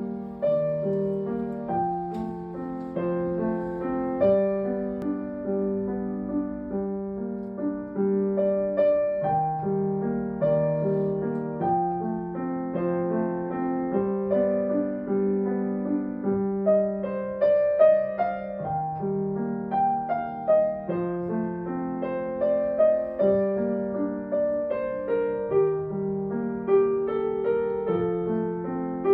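Solo piano playing a continuous, even stream of notes, mostly in the middle register.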